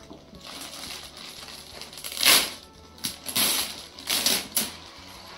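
Clear plastic packaging bag crinkling and rustling as it is opened around a backpack, in several irregular crackling bursts, the loudest a little over two seconds in.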